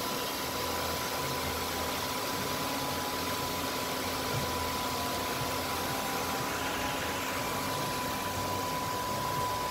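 Steady hiss and low hum with a thin, steady high tone.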